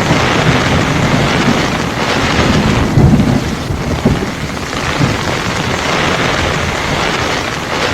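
Heavy rain pouring during a thunderstorm, with thunder rumbling in low surges, the loudest about three seconds in.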